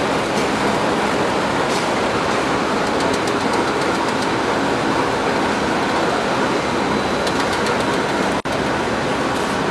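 Potato chip production line machinery running: a steady mechanical din of belt conveyors and their geared drive motors, with light rattling clicks. The sound cuts out for an instant about eight seconds in.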